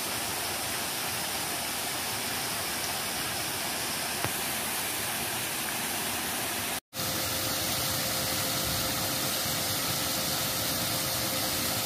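Steady rush of flowing river water, broken by a brief dropout about seven seconds in; after it, water pouring over a small concrete weir, with a faint steady tone under it.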